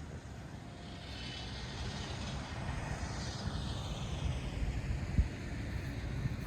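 An aircraft flying past, its engine noise swelling and then dropping in pitch as it goes by, over a low rumble, with a brief low thump about five seconds in.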